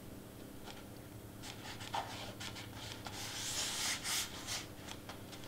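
Hands rubbing and pressing on a cardstock 3D letter, a faint papery swishing with small ticks, and a longer rub about three seconds in.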